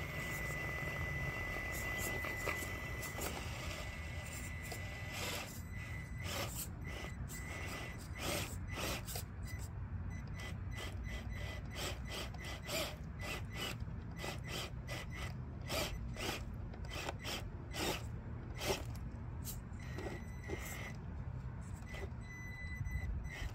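Traxxas TRX-4M mini crawler stuck and binding under a rock lip. A thin, steady, high electric motor whine sounds for the first five seconds or so. After that come many sharp clicks and scrapes of tyres and plastic on rock.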